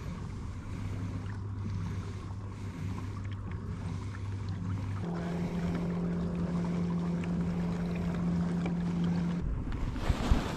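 Old Town Sportsman PDL 120 kayak's pedal drive whirring steadily as it is pedalled along, its hum stepping up in pitch about halfway through. A rush of wind noise on the microphone comes in near the end.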